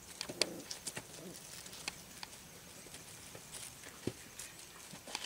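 Small puppy paws pattering and scuffing over loose gravel, an uneven scatter of light clicks and crunches from several puppies moving about.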